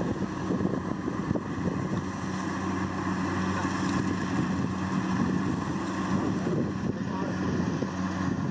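Kubota DC70 Plus rice combine harvester running steadily while it harvests, a constant engine drone with machinery noise.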